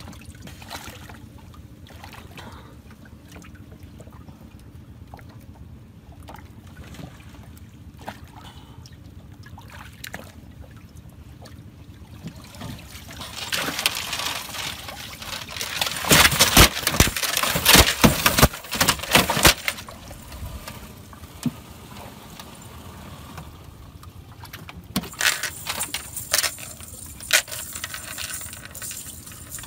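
Water splashing and pouring off a cast net as it is hauled over the side of a small boat with a large fish caught in it, loudest for several seconds a little before the middle, with sharp slaps among the rush of water. Near the end, a few more splashes and knocks in the boat's wet bottom as the netted fish is handled.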